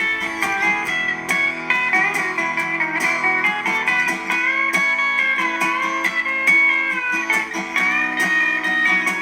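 Guitar-led music playing steadily, with gliding guitar notes over a plucked and strummed backing.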